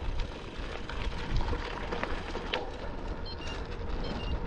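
Gravel bike tyres rolling over a rough lane, with a constant fine crackle of grit under them and wind rumbling on the microphone.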